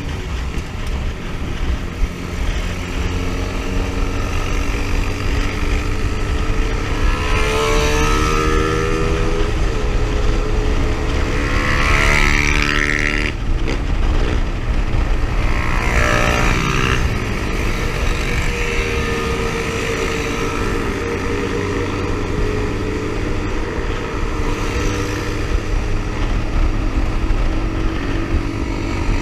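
Motorcycle engine running at road speed with heavy wind rush on the microphone. About seven seconds in, the engine note climbs steadily for several seconds, then drops abruptly, as in a gear change, before settling back to a steady cruise.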